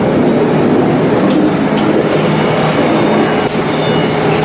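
Open two-roll rubber mixing mill running, its drive and rolls making loud, steady machine noise with a low hum as a rubber sheet works through the rolls, and a few faint clicks.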